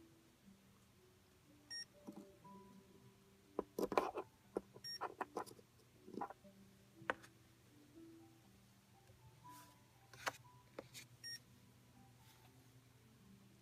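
Plastic chess pieces clacking as they are picked up and set down on a Saitek Sensor Chess Turbo electronic chessboard, with a cluster of knocks about four seconds in and a few more later, and short electronic beeps from the chess computer. Faint music plays underneath.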